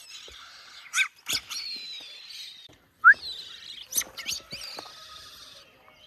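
Young mynas (八哥) begging to be fed: a continuous high chatter of calls with several sharp, rising chirps over it.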